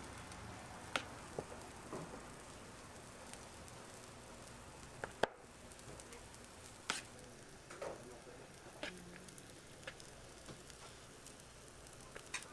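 Faint sizzle of food frying on a steel flat-top griddle, with scattered sharp clicks of a metal spatula against the griddle and trays.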